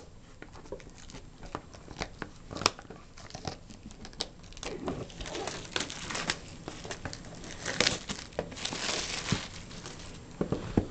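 Clear cellophane shrink-wrap crinkling and crackling as it is pulled off a sealed trading-card box and crumpled up, with scattered sharp clicks; the crinkling is busiest in the second half.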